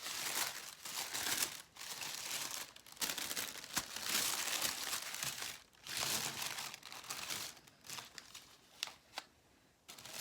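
Tissue paper crinkling and rustling in irregular bursts as a wrapped item is unwrapped, dying down shortly before the end.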